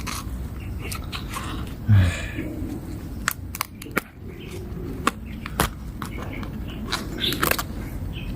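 Crisp snaps and cracks of leaves being peeled and broken off a vegetable head by hand, a run of separate sharp clicks; rotten outer layers are being stripped away. A short low pitched sound comes about two seconds in.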